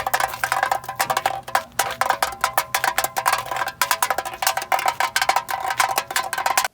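Rapid, dense percussive tapping and knocking with a ringing tone, cutting off suddenly at the end.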